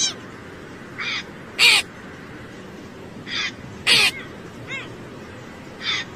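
A hooded crow cawing: short calls that come mostly in pairs, a softer one followed about half a second later by a louder one, three times, with a faint single call in between.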